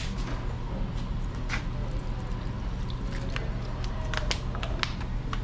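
Scattered light clicks and taps of tools and objects being handled on a worktable, over a steady low hum.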